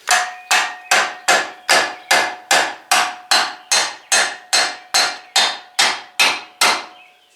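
Steady, even hammer blows on an aluminum bearing-installer driver, about two and a half a second, each with a short metallic ring. The blows are driving the new wheel hub into the freshly installed wheel bearing.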